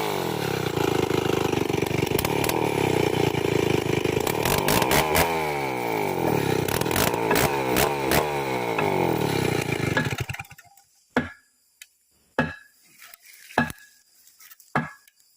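Old chainsaw running at speed, its pitch rising and falling, then shutting off abruptly about ten seconds in. Four sharp knocks follow, about a second apart.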